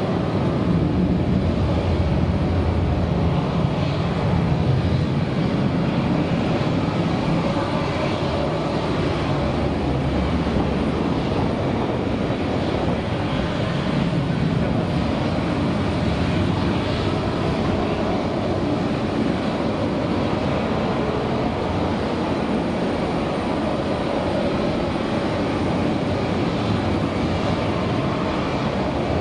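Steady jet engine noise from an airliner on the apron, with no distinct events. The low end is a little stronger in the first few seconds.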